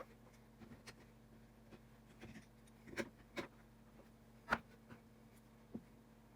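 Scattered light clicks and taps, about six in all, the loudest about four and a half seconds in, from an iPhone XR and small repair tools being handled during a display replacement.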